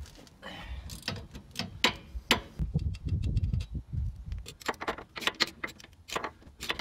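Ratchet wrench clicking in irregular runs as the 12 mm bolts holding a rear wheel hub are backed out, with light metal clinks; the clicks come thickest in the second half.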